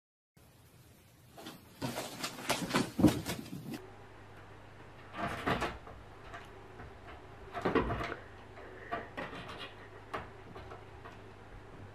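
A cat jumping and clambering: a cluster of knocks and thumps in the first few seconds, then two bursts of scraping and thudding as it scrabbles up onto the top edge of a wooden door, followed by a few smaller knocks. A low steady hum runs underneath.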